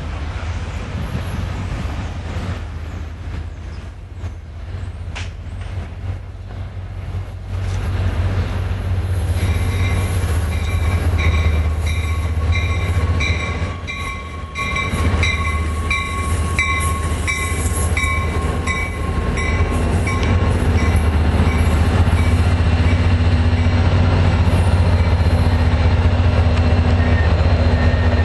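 A New Jersey Transit diesel locomotive-hauled train running through the station with a steady low engine rumble, growing louder as it comes close. From about a third of the way in, a bell rings about one and a half times a second for some ten seconds, with a held high squeal from the wheels.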